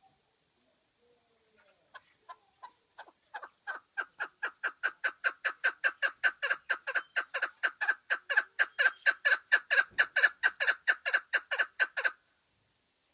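Chukar partridge (lal keklik) calling: a long run of short, sharp chuck notes that begins slow and faint about two seconds in, then quickens and grows louder to about four notes a second. It stops abruptly near the end.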